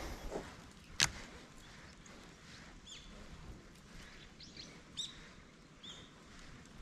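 Small birds chirping now and then, short curved chirps a second or so apart, over faint outdoor background noise. A single sharp click about a second in is the loudest sound.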